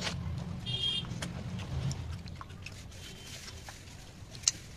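Small wet mouth clicks and smacks from sucking curry off the fingers while eating by hand, with a sharp click near the end. Under them is a low rumble that fades after about two seconds.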